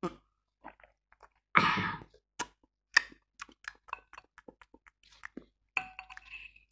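Close-up eating and drinking sounds: a loud breathy sound just after a gulp of iced tea, then two sharp knocks as the glass jar is set down on the table. After that come a run of light clicks from chopsticks against the noodle bowl as the noodles are stirred.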